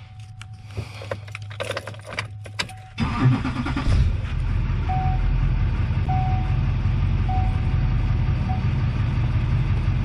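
Keys rattle at the ignition under a steady warning tone. About three seconds in, the truck's Duramax 6.6-litre V8 turbodiesel cranks, catches and settles into a steady idle, while a dash warning chime beeps four times, evenly spaced.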